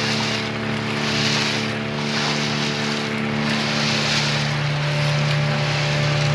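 Small fishing boat's motor running steadily under way, with the hiss of water rushing along the hull swelling and fading about once a second as the bow meets the waves.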